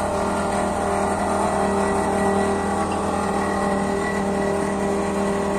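An engine running steadily at constant speed: an even droning hum that holds one pitch throughout, with no revving.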